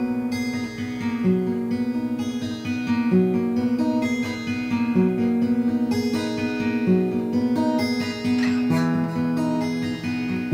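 Acoustic guitar, a Dove model, being played: picked and strummed notes moving through a melody, some notes repeated quickly.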